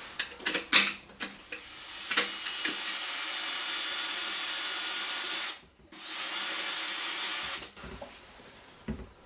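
Handheld power drill running on rusted iron in two stretches: about four seconds, a brief stop, then about a second and a half more. A few clicks and knocks come before and after.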